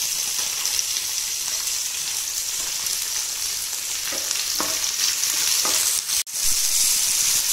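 Chopped onions sizzling in hot oil in a non-stick frying pan, a steady frying hiss, while a wooden spatula stirs them. The sound breaks off for an instant about six seconds in.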